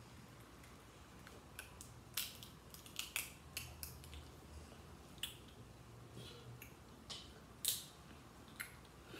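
Snow crab shells cracking and snapping as the legs are broken open and picked by hand and bitten, in irregular sharp clicks and crunches, the loudest crack about two-thirds of the way through.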